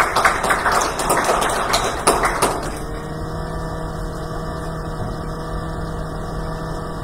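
Congregation applauding briefly, dense clapping that dies away about two and a half seconds in, leaving a steady hum in the sanctuary.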